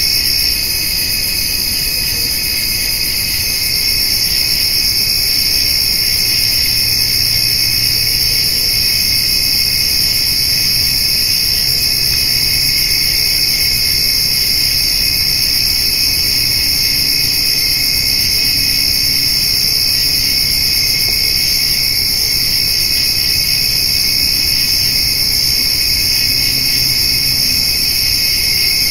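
Summer evening chorus of crickets and grasshoppers: a steady, unbroken high-pitched chirring at two pitches, the higher one louder.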